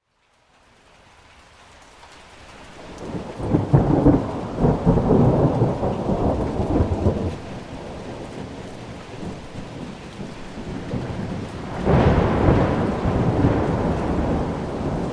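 Thunderstorm: rain with two rolls of thunder. It opens on a moment of silence before the rain fades in; the first thunder builds about three seconds in and rumbles for about four seconds, and the second breaks more sharply near the end and rumbles on.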